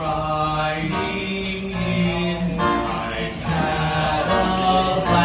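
Live music: voices singing long held notes that change pitch every second or so, without clear words.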